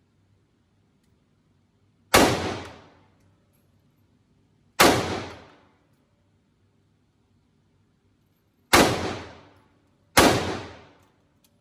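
Four single gunshots at irregular intervals, two close together near the end, each followed by about a second of echo dying away.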